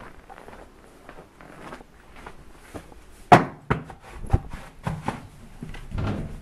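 Footsteps, then a loud thud about three seconds in followed by a run of sharp knocks and clunks and a duller thump near the end, from going in through a wooden front door.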